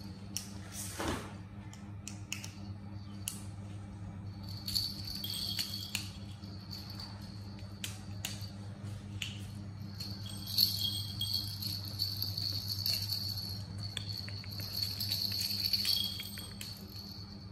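Plastic baby toys with small bells inside jingling and clicking as a baby monkey handles them, in bouts with pauses, loudest in the second half, over a steady low hum.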